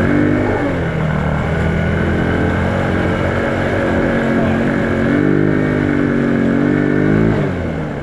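Small off-road vehicle engine running, revving up about five seconds in, holding there, then dropping back down near the end.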